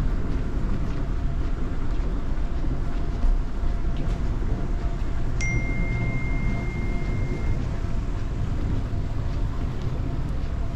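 Steady low rumble of airport terminal ambience picked up by a handheld camera while walking. About halfway through, a single high electronic beep sounds and holds steady for about two seconds.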